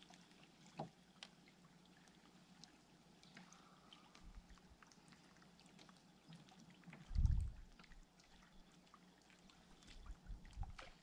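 Quiet handling sounds aboard a fishing kayak: scattered small clicks and knocks with faint water sounds, and one louder low thump about seven seconds in.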